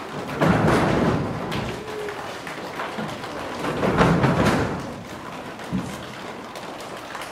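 Thudding footsteps and bumps of children running across a hall floor, in two loud bursts about a second long, near the start and about four seconds in.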